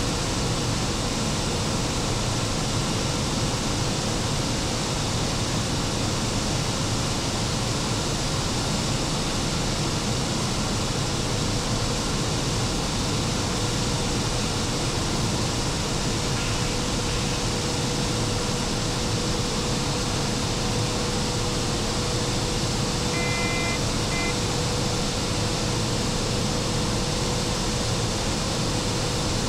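Machine room of the E 94 electric locomotive under way: a steady rushing machinery noise with a constant mid-pitched hum. A short high tone sounds twice about three quarters of the way through.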